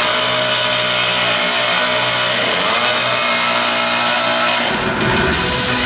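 Chainsaw sound effect played over a loudspeaker system, running steadily, marking the rainforest's destruction. Music comes in near the end.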